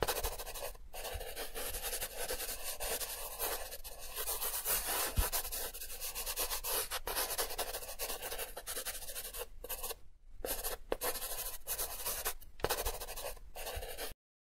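Pencil graphite scratching and rubbing on drawing paper as it shades, a continuous scratchy sound broken by brief pauses where the pencil lifts. It cuts off suddenly near the end.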